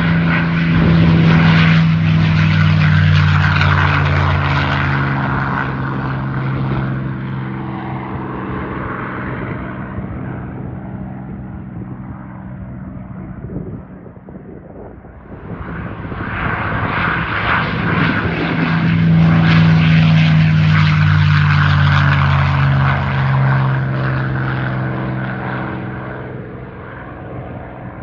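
P-51 Mustang V-12 piston engine making two low flybys. The first pass is loud at the start and fades away over about a dozen seconds. A second pass builds about halfway through, is loudest a few seconds later, and fades toward the end.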